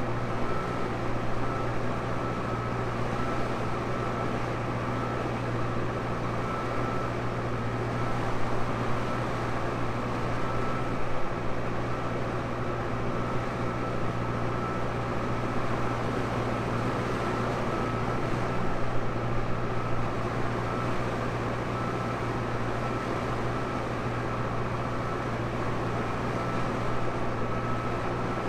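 Tractor engine running steadily while pulling a plough, a constant low hum with a thin high whine.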